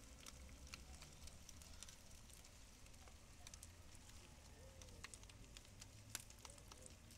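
Faint crackling of a pimento-wood fire under a jerk pan, with scattered sharp pops and a low rumble underneath.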